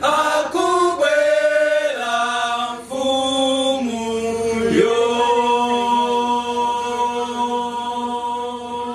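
Male a cappella group singing in harmony without instruments, moving through a few chord changes and then holding one long chord that begins to fade near the end.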